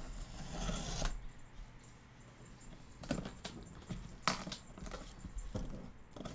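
Packing tape being pulled and cut off a cardboard box: a rustling tear in the first second, then quieter handling of the box with a few sharp clicks, the loudest about four seconds in.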